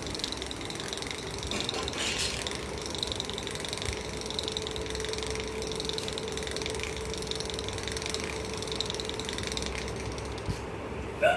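Small DC motor of a homemade vibrating drawbot whirring steadily, with a rapid rattling chatter as the shaking robot's pen legs skitter on the tile floor.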